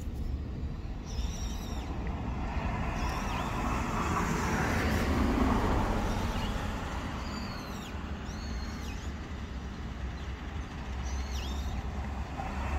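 A passing vehicle's rush that swells to its loudest mid-way and fades again, while a small bird gives short, sweeping high chirps several times.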